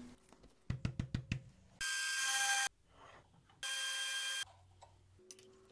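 A few light metallic clicks as the part is handled, then an end mill cutting dog-clutch slots into a metal part on a milling machine: two short, ringing bursts of cutting, each under a second and stopping abruptly.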